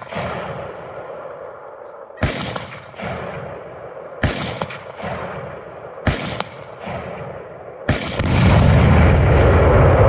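Three sharp shots about two seconds apart, each echoing, then about eight seconds in a large explosion with a long, heavy low rumble.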